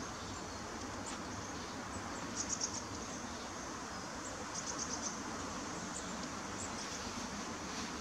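Steady woodland ambience with a faint hiss, broken twice by a short run of rapid high-pitched ticks, about two and a half and five seconds in.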